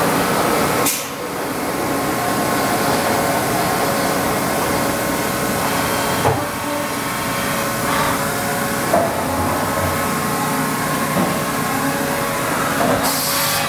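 Haas VF-4 five-axis CNC vertical machining center running with coolant spraying inside its enclosure: a steady spray noise with several steady tones under it, dipping briefly about a second in, and a few faint knocks.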